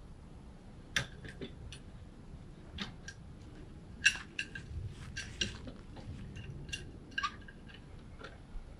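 A clamp being tightened onto a wooden door-frame stud against the greenhouse's metal hoop: a run of irregular sharp clicks with a brief ring, bunched about a second in and again from about four to seven seconds in, the loudest about four seconds in.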